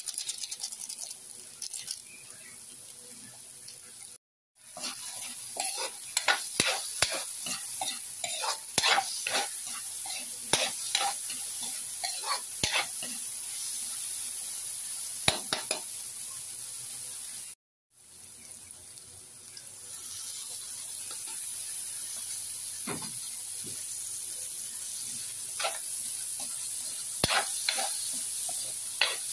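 Diced vegetables sizzling in oil in a metal wok while a spatula scrapes and clacks against the pan as it stirs them. The sound drops out briefly twice, about four seconds in and about two-thirds of the way through.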